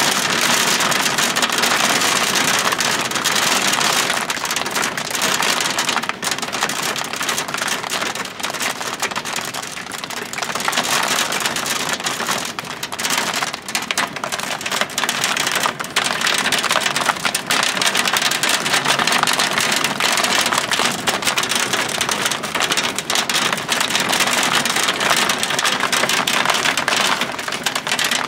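Hail and heavy rain pelting down: a dense, steady hiss full of small quick clicks of stones and drops striking.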